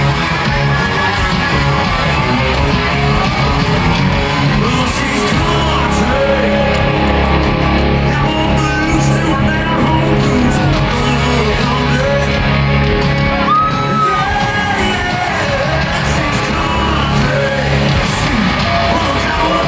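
Live country-rock band playing loud through a stadium PA, with a singer's voice over guitars and a steady bass beat, and crowd yells mixed in.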